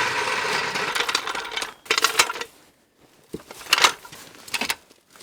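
Metal tools and parts clinking and rattling for a couple of seconds, then a few separate sharp metallic clanks and knocks.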